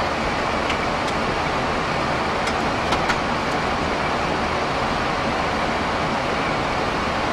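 Steady rushing flight-deck noise of a Boeing 737-400 in cruise: air rushing past the nose and windscreen with the cabin air-conditioning hiss. A few faint clicks come around two to three seconds in.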